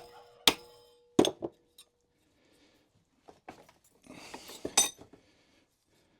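Hammer striking a metal rivet on a rake, peening it so that it mushrooms out: one ringing blow, then two more about a second in. Metal clinking and clattering follows near the end as the pieces are handled.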